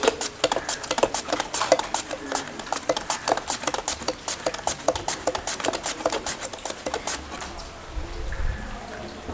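A raw peeled potato being slid by hand over the blade of a stainless-steel mandoline slicer, rasping strokes several a second as the slices are cut. The strokes stop about seven seconds in.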